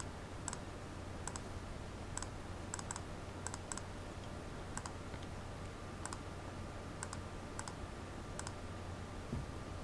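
Irregular single clicks from computer input, roughly one or two a second, as a dialog box is worked with the mouse. A steady low hum runs underneath.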